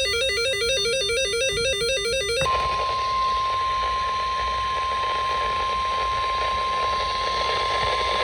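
Emergency Alert System SAME header: a warbling data burst of rapidly alternating tones that cuts off about two and a half seconds in. It is followed by the steady 1050 Hz NOAA Weather Radio warning alert tone over radio hiss, heralding a flash flood warning.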